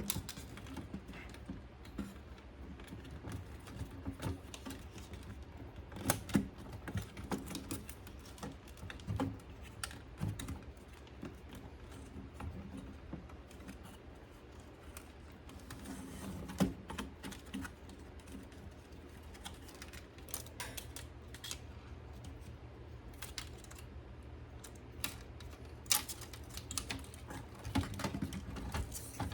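Irregular light clicks and taps of small tools and parts being handled during repair work on an Onkyo NFR-9's front panel, over a low steady hum.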